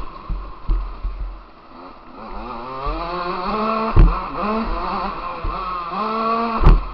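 KTM motocross bike engine heard from onboard, revving up twice with its pitch climbing and then dropping off as the throttle is chopped. Two loud knocks land about four seconds in and near the end, with lighter thumps early on as the bike is jolted over the track.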